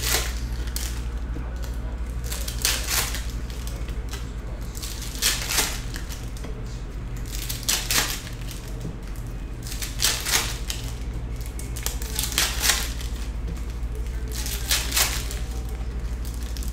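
Foil trading-card pack wrappers crinkling and cards being handled, in short paired rustles about every two and a half seconds, over a steady low hum.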